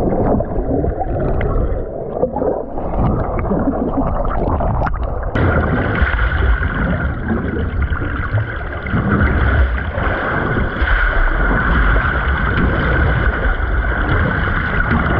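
Underwater sound picked up by a camera in open water: a loud, continuous low rumble and gurgling of moving water and bubbles. About five seconds in there is a sharp click, and from then on a steady higher hum runs along with the rumble.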